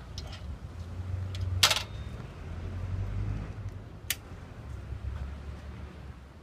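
Buell Firebolt XB12R's 1203 cc V-twin idling with a low, steady rumble, broken by a loud click about a second and a half in and a sharper tick about four seconds in.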